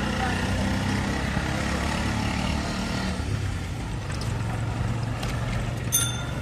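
Motor traffic running steadily, a low engine hum under general street noise. About six seconds in, a cycle-rickshaw bell starts to ring.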